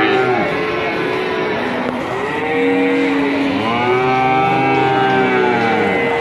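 Cattle mooing: one long moo a little after two seconds in, then another starting about four seconds in and still going at the end.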